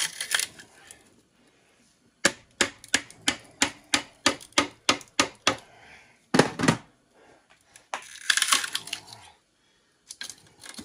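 Claw hammer striking the handle of a flat screwdriver wedged between the coils of a large generator's frame, pounding a piece loose: a quick run of sharp taps, about three or four a second, then one heavier blow, a brief scraping and a few more taps near the end.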